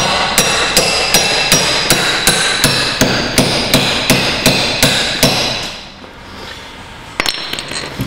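Rapid metal-on-metal blows, about two to three a second, as a tool hooked behind a high-security front door handle is jerked hard against it in an attempt to pull the handle off. The blows stop about five and a half seconds in, and a brief burst of knocks comes near the end.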